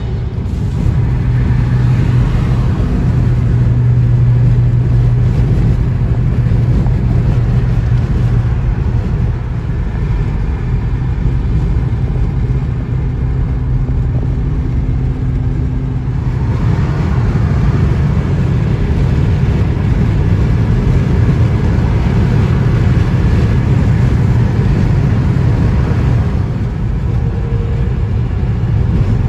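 Steady road noise heard inside a car cruising at motorway speed: a continuous low drone of engine and tyres. A little more hiss comes in from about halfway.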